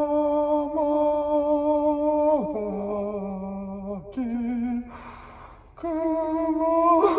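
A man singing slow, long held notes into a handheld karaoke microphone. The pitch drops to a lower note about halfway through, and he takes a short breath before rising again near the end.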